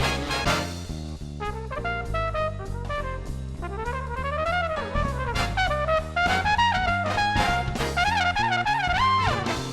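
Background music: an upbeat brass-led tune with a lead trumpet line over a steady bass and drum beat.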